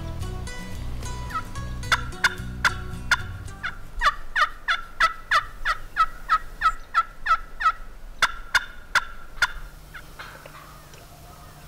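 A long run of turkey yelps, about three a second, each note sharp and dropping in pitch, with a short break before a last few notes. A low music bed runs under the first few seconds.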